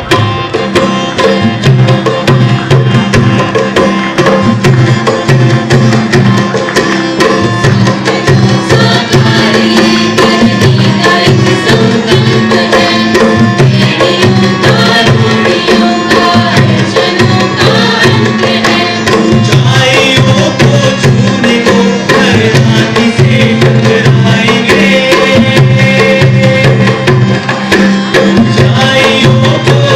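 Live performance of a Hindi anthem by a group of singers, accompanied by acoustic guitar and hand drums. The music starts right at the beginning.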